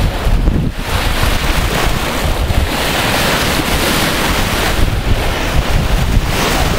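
Strong wind buffeting the microphone, over the hiss of surf breaking and washing on a sandy beach, the surf swelling through the middle.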